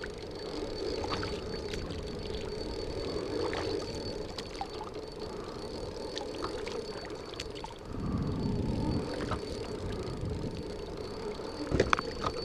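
Kayak paddle working the water: blades dipping and water pouring and dripping off them beside the hull, with scattered light clicks and knocks and a short cluster of them near the end.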